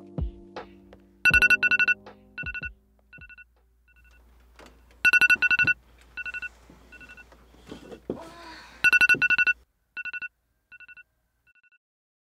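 Mobile phone beeping: loud pairs of steady high electronic beeps about every four seconds, each pair followed by fainter repeats that die away. At the start, soft music notes fade out.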